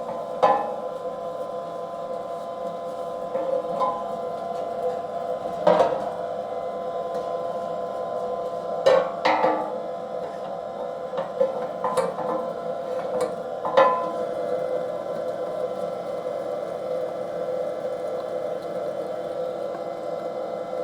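Electric meat grinder running steadily as it minces seasoned sausage meat through a 3 mm plate on its second grind, a constant motor hum with occasional sharp knocks.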